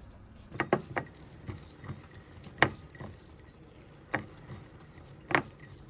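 Bare hands mixing sliced yongchak (tree bean) with chili paste in a ceramic plate: scattered sharp clinks and taps against the plate, the loudest about two and a half seconds in.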